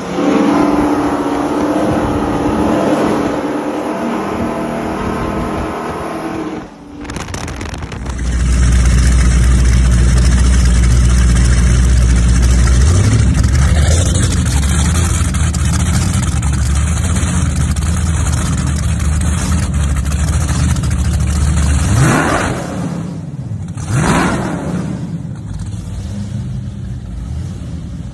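Cigarette go-fast speedboat engines: running underway at first, then a deep steady idle rumble, with two quick rev blips about two seconds apart late on, each rising and falling.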